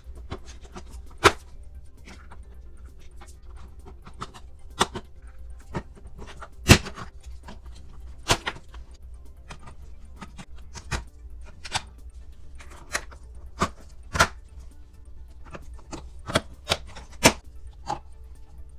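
Hard plastic toy parts of a Play-Doh Ice Cream Castle playset clicking and knocking as the pieces are snapped and pressed together: irregular sharp clicks and taps, with a handful of louder snaps, over a steady low hum.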